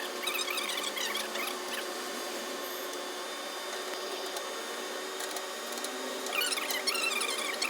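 Flare nut on an air conditioner's copper pipe being tightened with an adjustable spanner: metal squeaking and scraping in two bouts, one at the start and one from about six seconds in, over a steady faint hum.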